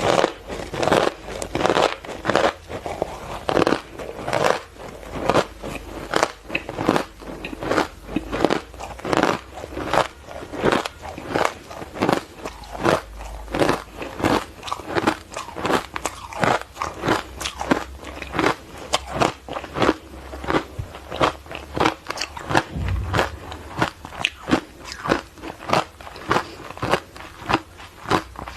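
Hard ice coated in matcha powder being bitten and chewed: a steady run of crisp crunches, about two to three a second.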